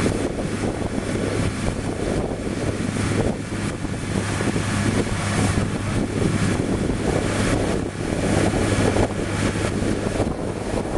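Engine-driven sprayer running with a steady low hum while binder solution is sprayed over a dirt stockpile, under wind rushing on the microphone.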